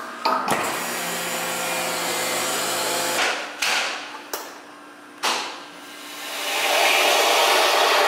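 Chamber vacuum sealer running its cycle. The lid clunks shut and the pump runs steadily with a low hum for about three seconds, then goes quieter, with a couple of clicks. About five seconds in a hiss starts and swells to its loudest near the end as air is let back into the chamber.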